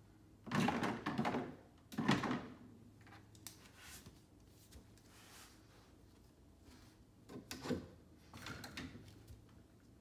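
Plastic toy-kitchen pieces (dishes, utensils and the toy cabinet) clattering and knocking as a small child handles them. There is a rattling burst about half a second in, another at about two seconds, a few light taps, then more clatter in the last few seconds.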